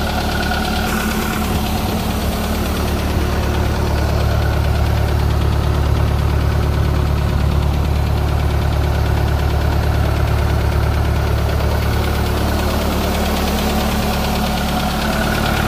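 Engine of an old Waldon 6000 articulating loader running steadily, a little louder through the middle.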